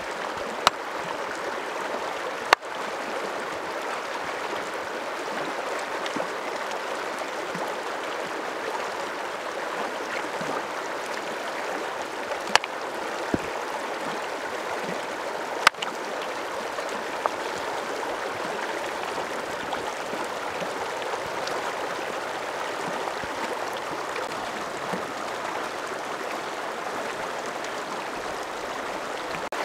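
Shallow mountain stream rushing steadily over stones, with about six sharp knocks of a meat cleaver chopping through turkey onto a wooden board, spread over the first half; the loudest comes a couple of seconds in.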